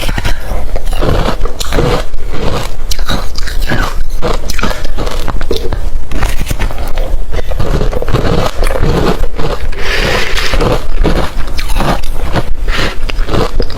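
Close-miked mouth chewing hard refrozen crushed ice: rapid, irregular loud crunches and cracks as the ice is bitten and ground between the teeth.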